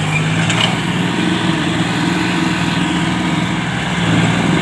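Diesel engine of a farm tractor running steadily at a constant speed.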